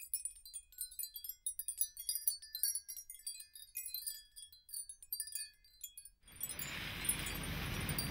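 Scattered high, tinkling chime tones ringing one after another. About six seconds in, a rising rush of water churning and splashing alongside a ship takes over, with wind.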